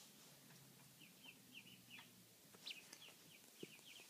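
Khaki Campbell duckling peeping: a faint, quick series of short high peeps, about four a second.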